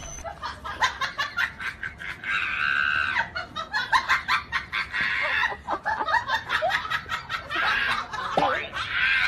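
A person laughing in quick repeated bursts, the dubbed soundtrack of a comedy clip.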